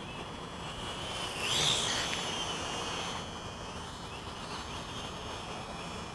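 Small quadcopter's motors and propellers whining as it flies overhead, a thin wavering pitch that swells louder and higher about a second and a half in as it speeds up or comes closer, then settles back to a steady whine.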